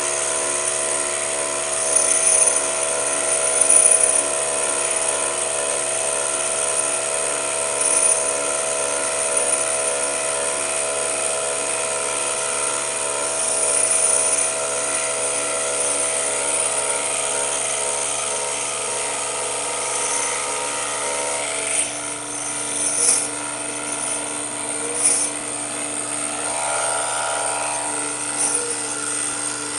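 Taig lathe spindle motor running under load as the tool takes a light cut into the steel chuck jaws, a steady whine of several tones. About two-thirds of the way through, the tone shifts and a few short sharp ticks come through.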